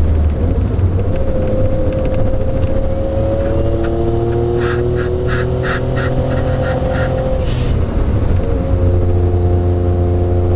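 Turbocharged 657 cc inline-three of a big-turbo Suzuki Cappuccino kei car, pulling up through a gear with its pitch slowly rising. About three-quarters of the way through, the throttle lifts for a shift with a short hiss from the blow-off valve. The engine then runs on steadily in the next gear. A quick run of ticks is heard midway.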